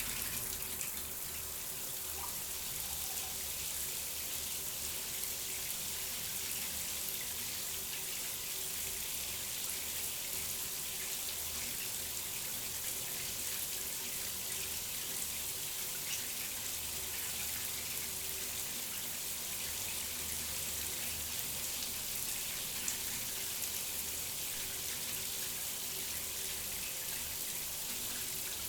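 Water running steadily in a bathroom, an unbroken stream with no pauses.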